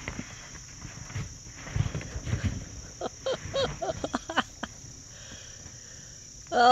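Steady high insect chorus, with dull thuds as a foal throws itself down and rolls in the dirt against a large ball, and a few short vocal sounds about halfway through.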